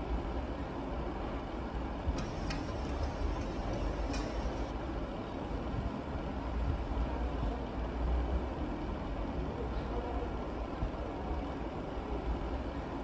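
Steady low background rumble, with a few light clicks between about two and four seconds in.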